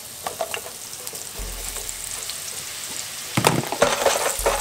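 Sliced mushrooms sizzling as they go into a pan of hot olive oil and butter, a steady frying hiss with a few light taps early on as pieces land. A louder clatter comes about three and a half seconds in, and again near the end.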